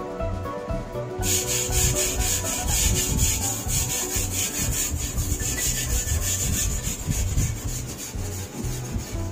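Bristle brush scrubbing the bare, grimy sheet metal inside a stripped car body, in rapid, even back-and-forth strokes that start about a second in.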